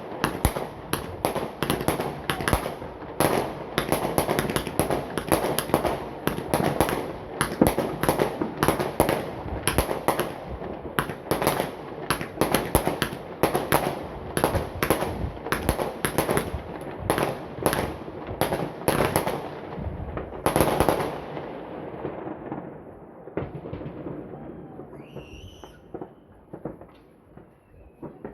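Many fireworks going off at once: a dense, continuous barrage of bangs and crackles, several a second. After about twenty seconds it dies down to scattered, fainter pops.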